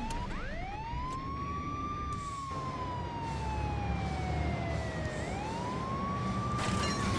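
Emergency-vehicle siren wailing, its pitch rising and falling slowly twice over a low rumble.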